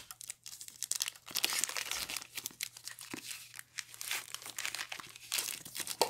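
Plastic mailer bag being slit and picked open with a folding knife: the plastic crinkles and tears in many short, irregular crackles.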